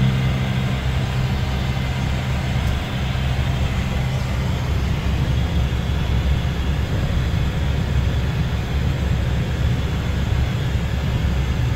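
Cessna 208 Caravan's PT6A turboprop engine and propeller droning steadily, heard from inside the cabin as the aircraft taxis.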